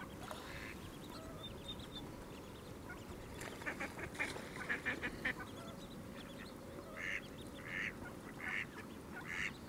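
Ducks quacking: faint, short calls, a quick run starting about three and a half seconds in, then single calls less than a second apart near the end.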